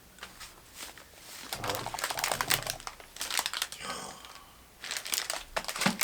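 Packaging being crumpled and crinkled by hand in bursts of sharp crackling, about a second and a half in and again near the end, typical of clearing up food wrappers and bags.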